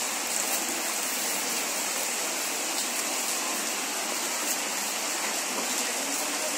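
Heavy rain pouring steadily, a dense even hiss, with an occasional sharp tap of a drip.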